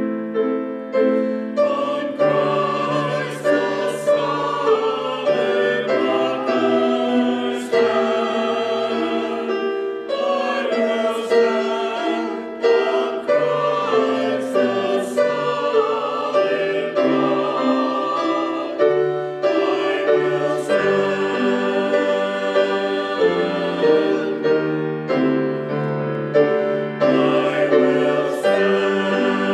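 Small mixed church choir of men and women singing together in sustained chords, phrase after phrase with short breaks for breath.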